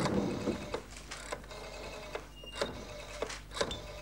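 Desk telephone being picked up and dialled: about half a dozen separate sharp clicks and clacks, spread unevenly over the few seconds.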